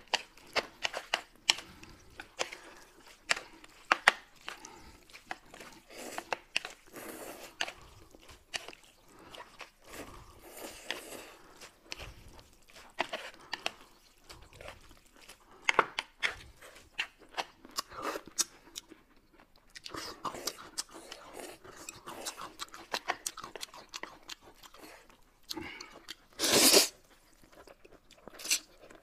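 Close-miked mouth sounds of people eating noodles: steady chewing with many small wet clicks and crunches, and one louder, half-second slurp of noodles about three-quarters of the way through.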